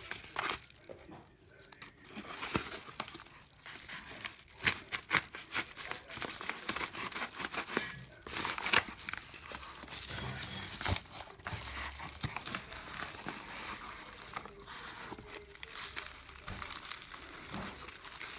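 A yellow padded paper mailer being torn open and crumpled by hand, then a bubble-wrap packet pulled out and handled: irregular crinkling, tearing and crackling of paper and plastic.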